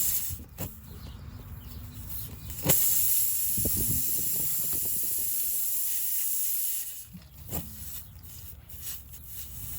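Air hissing out of a punctured car tire as a reaming tool is worked in and out of the hole: a strong, steady hiss starts suddenly a few seconds in and lasts about four seconds. A few short scrapes and knocks of the tool come before and after it.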